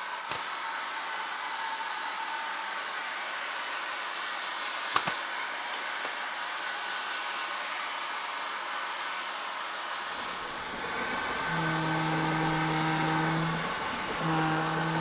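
Hand-held hair dryer blowing steadily. About ten seconds in, a low rumble comes up, and near the end a train horn sounds: a held low note, a short break, then the note again.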